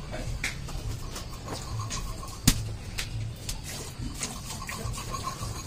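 Water buffalo being milked by hand, the milk squirting in short strokes into a steel pail at about two squirts a second, with one sharp knock about two and a half seconds in.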